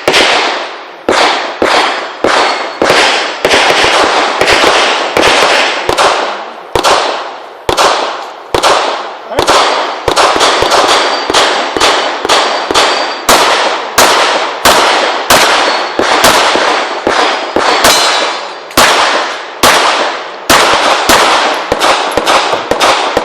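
A long, irregular string of pistol shots, about one every half-second to second, each sharp report followed by a ringing echo.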